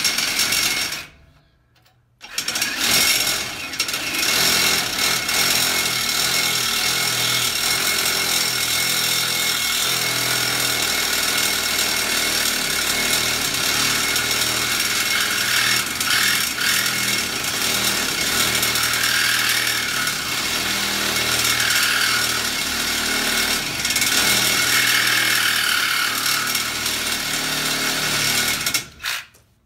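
Reciprocating saw cutting through a galvanized square-steel boat-trailer tongue, running steadily. It stops about a second in, starts again about a second later, and runs on until it stops just before the end.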